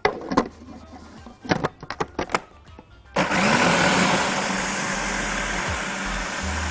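A few plastic clicks and knocks as the lid and pusher are fitted onto a food processor. About three seconds in, its motor starts suddenly and runs steadily, chopping a wet mix of peppers, garlic and herbs with lemon juice and vinegar.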